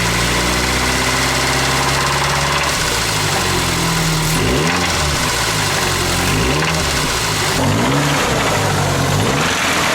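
Truck engine running steadily, then revved up and let back down about once a second in a series of short blips. The engine had developed a knock and its oil was treated with Lucas Oil Stabilizer.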